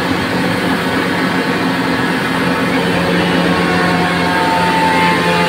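Pressure washer running steadily, its high-pressure jet spraying water onto the road surface along the curb, over the constant hum of its pump motor.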